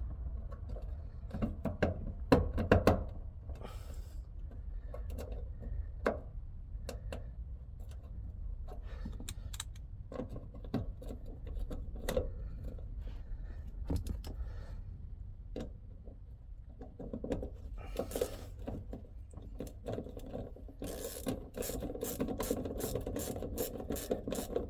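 Scattered small clicks and knocks of tools and bolts being handled, then near the end the fast, even clicking of a ratchet spanner running in one of the small 7 mm bolts that hold the van's fuel tank lift-pump unit.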